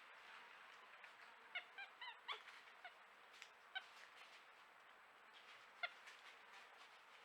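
Faint short calls from an animal, each with a clear pitch: a quick run of four about a second and a half in, then single calls, the last near six seconds. A faint steady insect hum runs beneath them.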